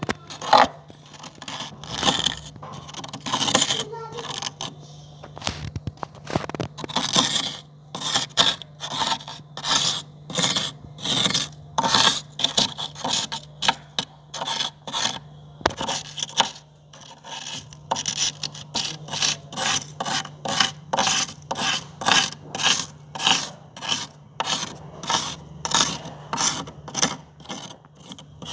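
Metal spoon scraping frost off the inside of a deep freezer: a long run of short scraping strokes through packed frost, irregular at first, then settling into a steady rhythm of about two strokes a second.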